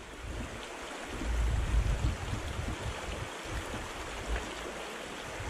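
Shallow, stony river rushing over rocks, heard from a handlebar-mounted camera on a bike being pushed through the water, with low rumbling bumps and buffeting that are loudest about a second and a half in.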